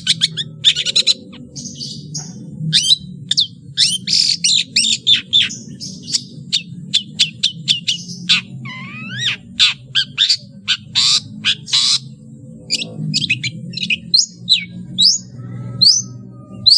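Long-tailed shrike (cendet) singing a rapid, varied song of sharp chirps, buzzy notes and slurred whistles, mimicking other birds' calls, over a steady low hum.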